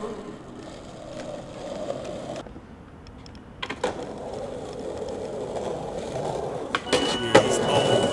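Skateboard wheels rolling over asphalt, a steady rumbling roll with a few sharp clicks from the board.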